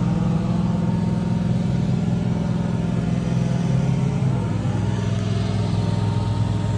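A vehicle engine idling steadily, a low, even rumble.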